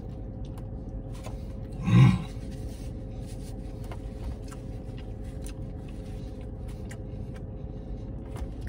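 A man eating a burger: faint wet chewing clicks and smacks over a steady low hum of the car interior, with one brief loud vocal sound about two seconds in.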